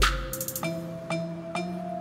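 Background electronic music with a beat: a deep bass-drum hit dies away at the start, then light clicks over held notes.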